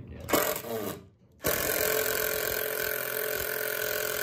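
Milwaukee M18 cordless drill motor running steadily with a constant whine, driving a screw up into an overhead wooden beam; it starts abruptly about one and a half seconds in, after a short voice sound and a brief pause.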